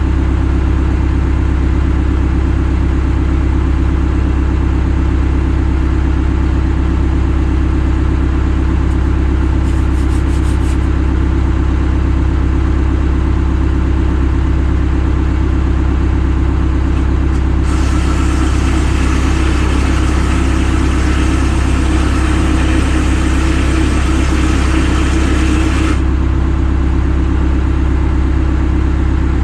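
A vehicle's engine runs with a steady low drone. From about eighteen seconds in, a louder hiss joins it for roughly eight seconds and then stops suddenly.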